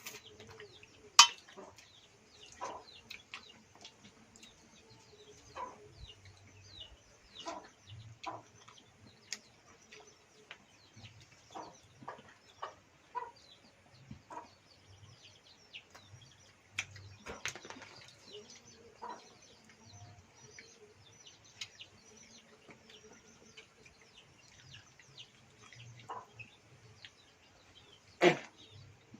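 Chickens clucking on and off, with small birds chirping high overhead and scattered short knocks. The loudest sharp knocks come about a second in and near the end.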